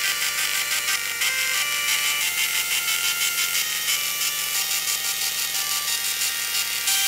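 Dot matrix printer playing a melody: the print head buzzes out sustained pitched notes that change every second or so, with a fine rapid rattle, while the carriage creeps across the paper.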